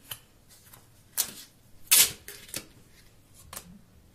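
Handling noise from a Samsung Galaxy S3 Mini smartphone being turned over in the hands: a handful of irregular sharp clicks and taps of its plastic body against fingers, the loudest about two seconds in.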